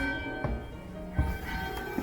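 Carillon bells of St Pierre Cathedral struck one at a time, about four strokes at uneven spacing, each leaving its bell tones ringing on.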